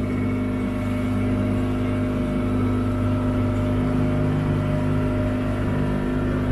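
Outboard motor of a small wooden fishing boat running steadily at cruising speed, a constant hum that holds one pitch, with the wash of water along the hull.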